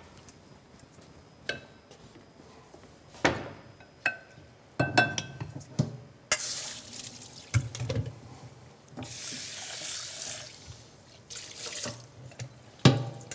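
Kitchen tap running in three short spells, with clinks and knocks of metal pots and utensils in between and a last knock near the end.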